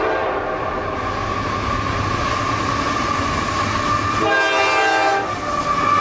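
Passing freight train rumbling along the rails while a locomotive air horn sounds: a horn chord fading out in the first half-second, then a second short blast about four seconds in.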